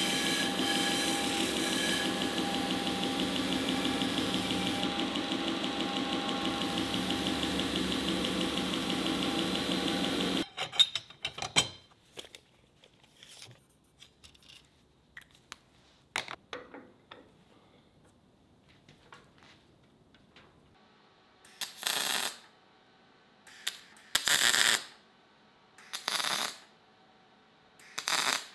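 Belt grinder running with a steel bar ground against its belt for about ten seconds, then stopping suddenly. Next come small scattered clicks of handling and marking out, and near the end four short bursts of a MIG welder tack-welding rebar onto steel.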